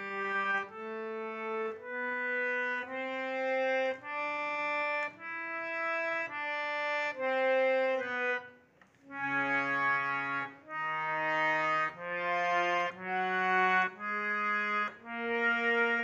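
A hand-pumped harmonium playing a slow melody of held reed notes, with a brief break about halfway. The bellows are pumped lightly to keep the sound soft.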